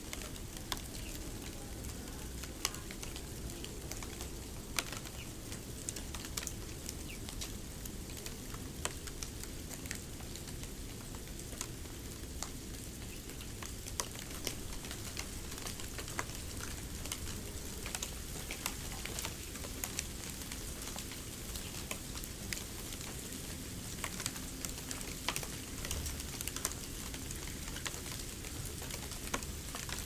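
Snow sounds: a steady soft hiss with small irregular crackles and ticks, a few a second.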